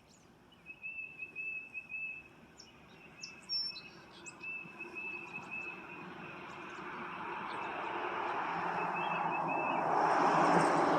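Small songbirds calling outdoors: repeated steady trills and short high chirps. In the second half a rushing noise swells steadily and becomes the loudest sound near the end.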